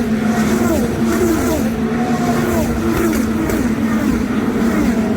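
IndyCar race cars' 2.2-litre twin-turbo V6 engines at full speed, several cars passing in quick succession, each engine note dropping in pitch as it goes by, over a steady drone.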